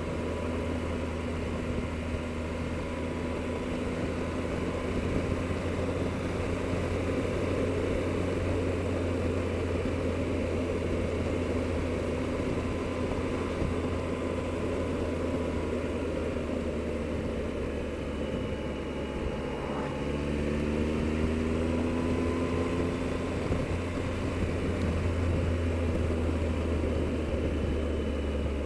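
Triumph Explorer motorcycle's three-cylinder engine running on the move, under steady wind and road noise. About two thirds of the way through, the engine note rises as the bike accelerates.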